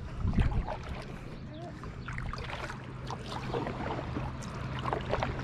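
Kayak on the water: small knocks and water sounds against the hull, over a steady low hum.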